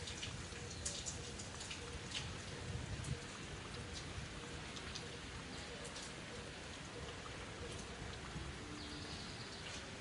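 Steady rain falling, with scattered individual drops clicking through the hiss.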